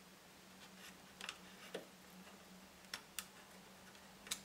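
A few small, sharp clicks, irregularly spaced, as a screwdriver tip levers a RAM chip's pins up from its row on the ZX Spectrum circuit board, over a faint steady hum.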